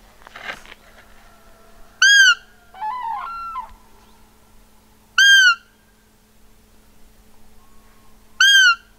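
Roe deer call blown three times, about three seconds apart: short, high squeaks that rise and fall in pitch, imitating a doe's fiep to lure a rutting roebuck. A quieter, wavering call sounds between the first two.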